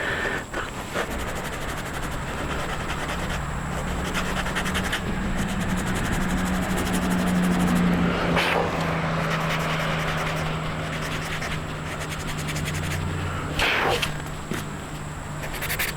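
Dremel rotary tool running at a lower speed setting and grinding hardened body filler to contour an edge, a steady motor hum under scratchy grinding. The pitch rises a little midway and then eases back down, with a couple of short sharp scrapes in the second half.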